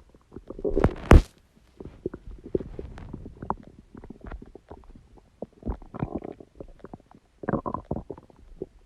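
Human stomach gurgling and rumbling in irregular squelches and pops, with the loudest burst about a second in and longer gurgling runs near the middle and end.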